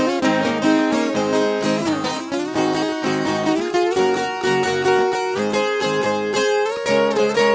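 Instrumental break in a caipira moda: a viola caipira, the ten-string Brazilian folk guitar, picking a run of notes with a few sliding notes.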